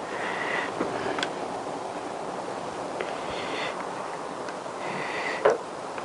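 A steady rushing background noise with a few light clicks and taps of handling the opened-up chainsaw.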